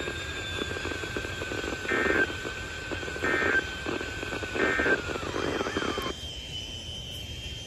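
Three short warbling bursts of EAS data tones, about a second and a half apart, from a weather radio receiver through radio static: the end-of-message code that closes a NOAA Weather Radio test. About six seconds in the static cuts off, leaving a faint thin whistle.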